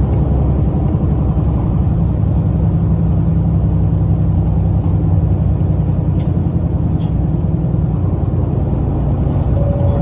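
City bus under way, heard from inside the cabin: the engine hums steadily over low road rumble.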